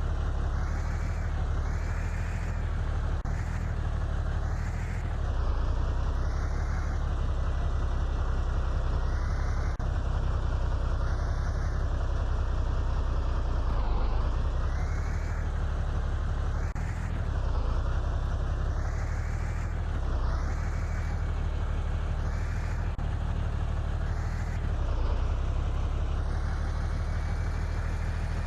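Radio-controlled truck running: a steady low engine hum under a higher whine that rises and falls every couple of seconds as it speeds up and slows.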